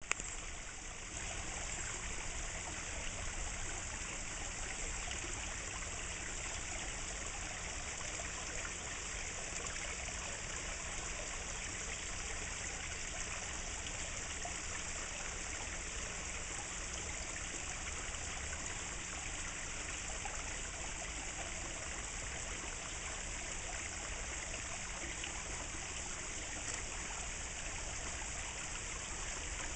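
Steady trickling of water from a garden pond fountain falling into a koi pond, an even running-water sound with no distinct splashes.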